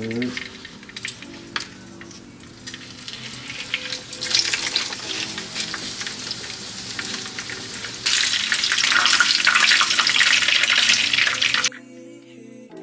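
Pork chops frying in hot oil in a skillet, sizzling and crackling with many small pops. The sizzle grows louder about four seconds in, is loudest in the second half, then cuts off abruptly shortly before the end.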